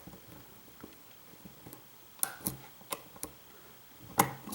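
Faint metallic clicks of a lock pick and tension wrench working the pins inside a lock cylinder: a few scattered ticks, with sharper clicks near the end.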